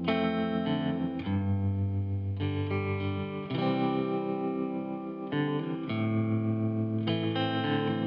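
Background music: sustained chords that change every second or two, with no speech.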